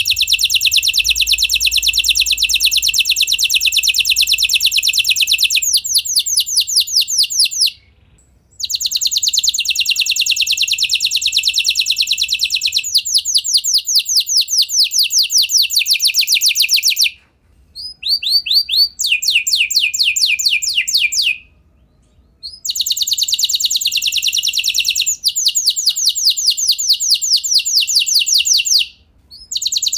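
Domestic canary (kenari F1) singing long rapid trills, phrase after phrase of fast repeated high notes, with short breaks every several seconds. It is a lure song meant to set other canaries singing.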